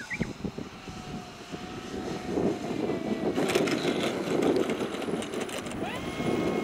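Radio-controlled aerobatic model airplane landing on grass: its motor is throttled back to a low whine, then the wheels rumble and rattle across the turf, and the motor whine steps up in pitch near the end.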